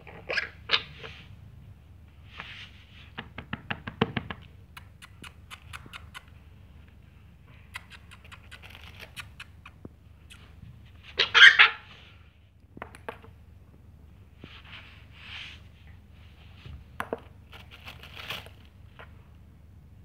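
An African grey parrot moving about and pecking on a carpeted floor: quick beak taps and clicks, with light scratching and rustling. There is a run of rapid taps a few seconds in and a louder rustling burst a little past the middle.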